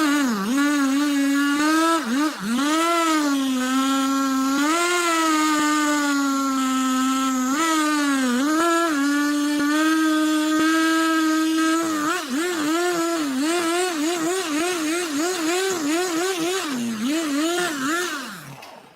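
Chainsaw running at high revs, its pitch dipping and recovering as it loads up in the wood, then wavering quickly about twice a second; the sound drops away suddenly near the end.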